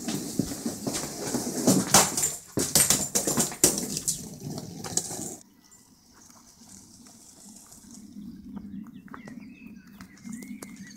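A wheeled suitcase rolling and clattering along a hard floor, with many sharp knocks, for about five seconds. It then cuts off suddenly to a much quieter low rumble as the suitcase is dragged over grass, with a few faint high chirps.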